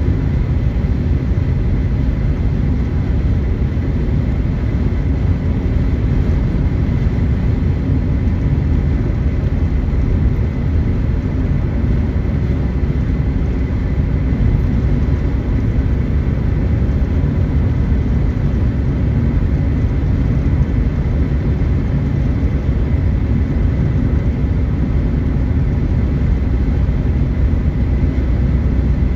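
Steady road and engine noise inside a moving car's cabin while cruising on a highway, mostly a low rumble.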